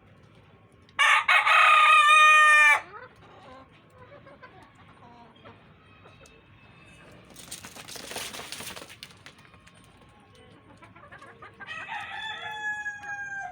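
A rooster crowing loudly once, a call of about two seconds starting about a second in. A short burst of rustling noise follows midway, and near the end a second, fainter crow begins.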